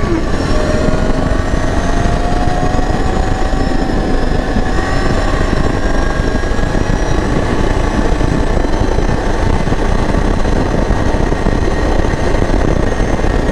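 CFMoto X8 ATV engine running steadily while riding, its note slowly rising, under a loud steady rushing noise.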